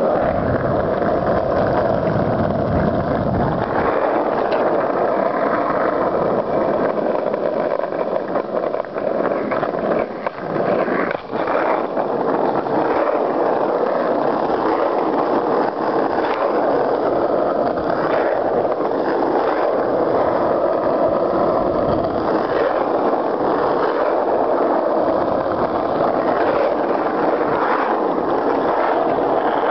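Steady rolling noise of wheels on asphalt while travelling along a paved road, with a brief dip and a single knock about eleven seconds in.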